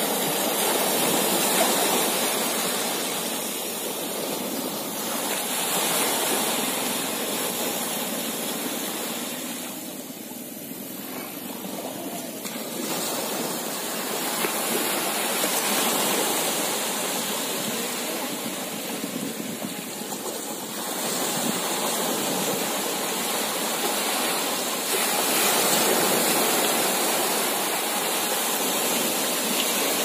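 Small waves breaking and washing in over shallow sand, a foaming rush that swells and fades every few seconds.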